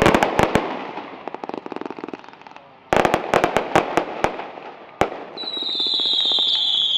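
Fireworks going off: two clusters of rapid crackling pops and a single bang about five seconds in, then a high whistle that falls slightly in pitch, held to the end.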